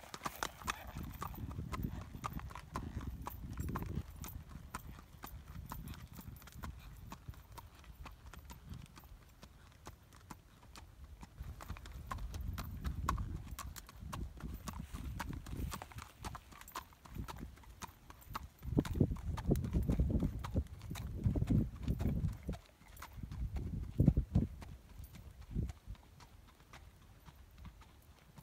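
A horse's hooves clip-clopping at a walk on a gravel track, with swells of low rumble that are loudest about two-thirds of the way through.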